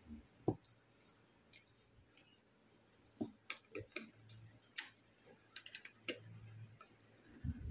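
Small key turning in the lock of a watch winder case: scattered faint clicks and ticks, one about half a second in, then a quick run of several clicks in the middle as the case is locked.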